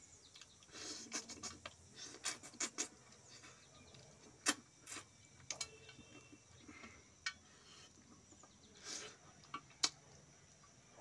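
Faint mukbang eating sounds of fish eaten by hand: chewing and lip smacks, with a scattering of sharp clicks and smacks as fish bones are picked from the mouth and dropped onto a steel plate.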